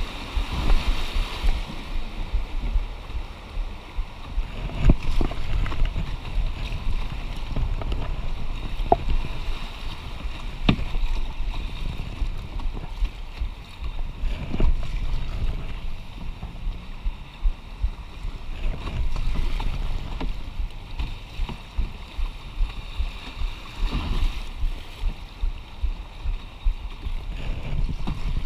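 Whitewater rushing around a canoe running a rapid, with wind buffeting the microphone. A few sharp knocks on the canoe are scattered through it.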